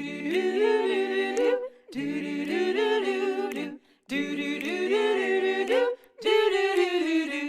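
A small vocal group singing a cappella in close harmony, in phrases about two seconds long with short breaks between them.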